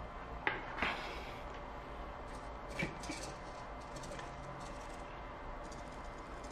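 Two sharp knocks near the start, then a run of short whirring bursts from the small hobby servo motors of a mini three-axis robot arm as it swings a marker about.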